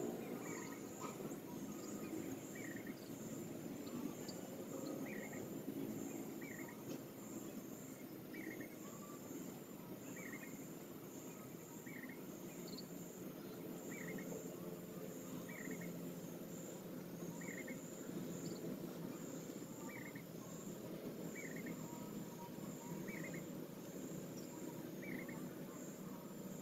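Outdoor insect chorus: a steady high chirring that pulses rapidly, with a short chirp repeated about once a second, over low background noise.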